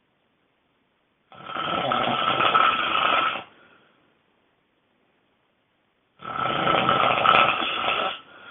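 A person snoring loudly: two long snores about five seconds apart, each lasting about two seconds, with silence between them.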